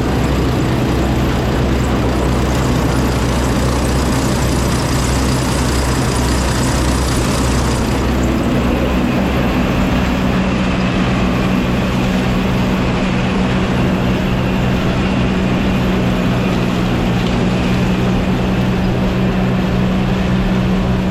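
Large farm machinery engine running steadily and loudly, its pitch changing about eight seconds in.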